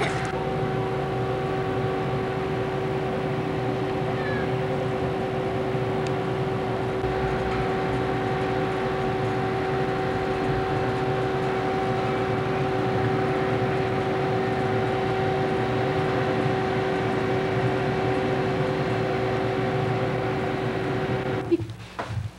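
A steady hum of a few held tones over hiss, unchanged throughout, cutting off abruptly near the end.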